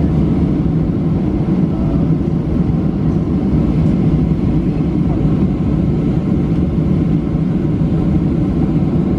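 Steady cabin noise of a Boeing 737-700 taxiing, heard from a seat over the wing: a low, even drone from its CFM56-7 turbofans at taxi thrust, with no rise in power.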